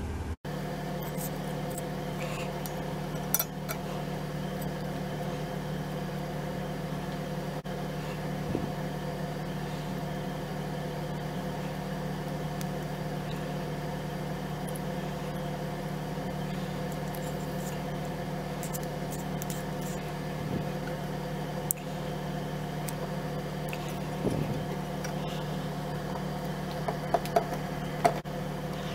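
A steady mechanical hum with several fixed tones, broken by a few light clicks and knocks, most of them near the end.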